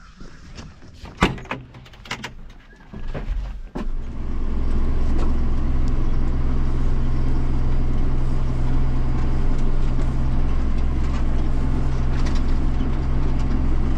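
A few knocks and clicks, then about four seconds in a tractor's diesel engine settles into a steady low running drone that holds on.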